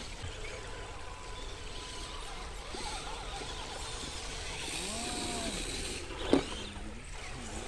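Steady outdoor rushing noise, with a few short faint rising-and-falling whines and one sharp knock about six seconds in.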